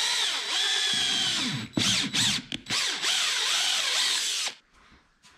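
Cordless drill motor whining as it drives a thread tap, cutting threads into 3D-printed plastic. It breaks off briefly about two seconds in, starts again, and stops about four and a half seconds in.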